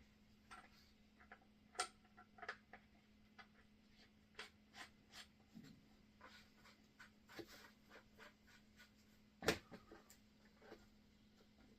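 Faint scattered clicks and taps of small metal parts and hand tools being handled during engine reassembly, with one sharper knock about nine and a half seconds in, over a steady low hum.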